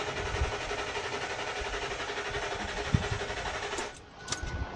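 Ford F-150 engine cranking on the starter without catching, an even rhythmic chugging that stops about four seconds in. This is a crank-no-start, which the mechanic suspects comes from the fuel pump not running.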